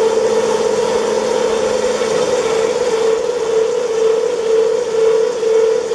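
Oil-wax rubbing and polishing machine for wood running: a steady machine hum with a clear mid-pitched tone over an even noise of motors and turning rollers. The tone pulses about twice a second in the second half.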